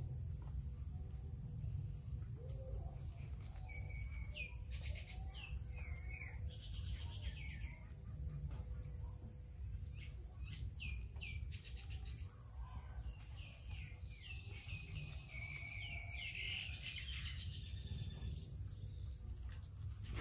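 Wild birds chirping in short, sweeping notes that come in several bursts, over a steady high-pitched insect drone and a low rumble.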